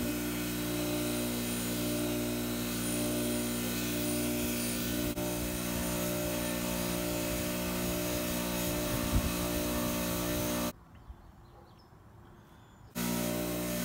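Craftsman bench grinder running with a steady hum and scrubbing hiss while a small steel hand-plane part is held against its wire wheel to take off rust. Near the end the sound drops to a much quieter stretch for about two seconds, then the running grinder comes back.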